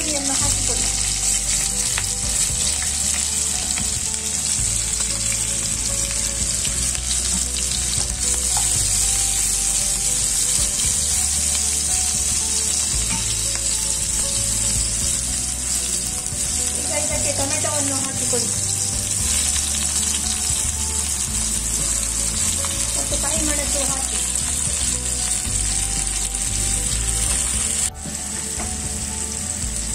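Chopped onions and vegetables sizzling as they fry in hot ghee in a pan: a steady frying hiss, a little quieter after a cut near the end.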